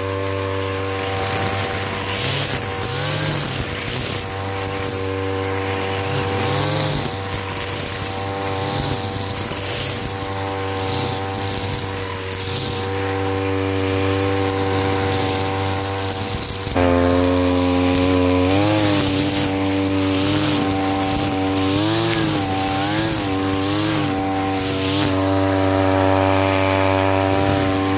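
Brush cutter's small petrol engine running at speed while cutting grass and weeds, its pitch wavering as the cutting head meets the growth. Just past halfway it gets louder, with repeated quick dips and recoveries in pitch.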